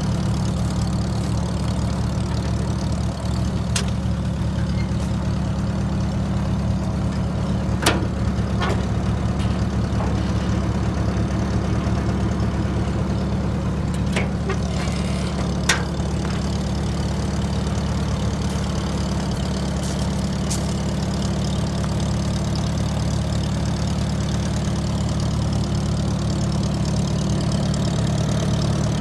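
1951 McCormick-Deering W-4 tractor's four-cylinder engine idling steadily, with a few sharp clicks about 8 and 15 seconds in.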